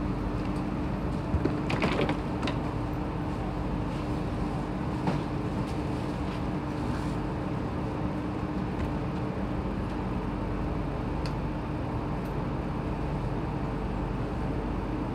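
Steady hum of an MRT station platform, with one even tone running underneath and a few sharp knocks about two seconds in.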